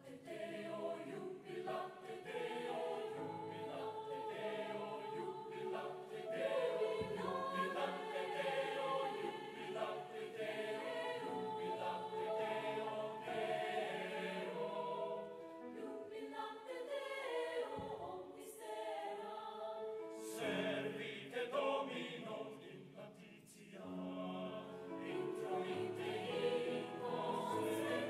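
Mixed choir of sopranos, altos, tenors and basses singing in harmony. The sound thins briefly about two-thirds of the way through, then swells again.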